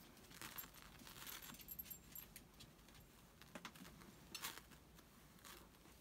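Near silence with faint, scattered rustling and small ticks as a piece of black fabric is handled and smoothed on a plastic appliqué pressing sheet.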